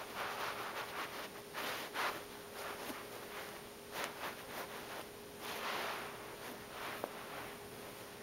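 Fingertips scratching and rubbing on carpet close to the microphone, in several short irregular scratchy bursts.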